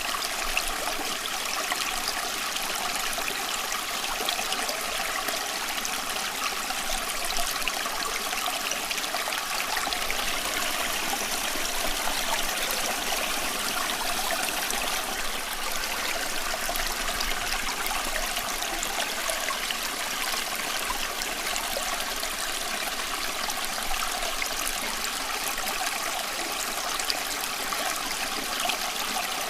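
Steady running water, an even rushing sound with little low rumble and no change in level.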